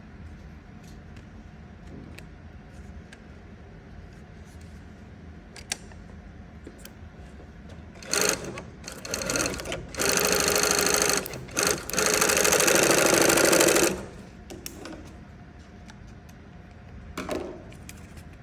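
Industrial single-needle compound-feed walking-foot cylinder-bed lockstitch sewing machine stitching in bursts: a few short spurts about halfway in, then two longer runs of a second or two at high speed, and one more brief spurt near the end, with only faint ticking between.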